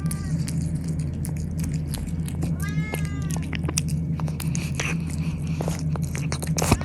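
A domestic cat meows once about three seconds in, the pitch rising then falling, amid many small sharp clicks, over a steady low hum.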